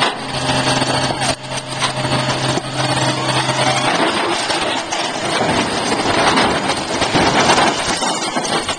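Truck-mounted mobile crane's engine running with a steady low hum that stops about four seconds in. A drawn-out crash follows as the crane overturns down the embankment, loudest around seven seconds in.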